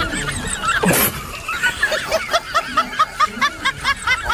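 High-pitched snickering laughter in quick repeated strokes, about four a second, with a sharp hit about a second in.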